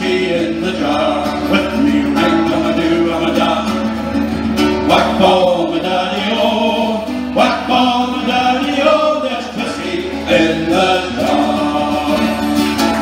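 Male folk group singing the closing chorus of a traditional Irish song together, with strummed acoustic guitars and a frame drum.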